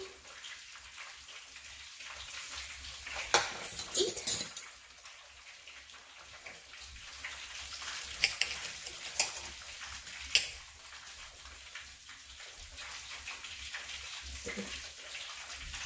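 Table knife and fork clinking and scraping against a ceramic plate while cutting a crisp panko-breaded fried patty: a few sharp clinks, the loudest about four seconds in and more around eight to ten seconds in.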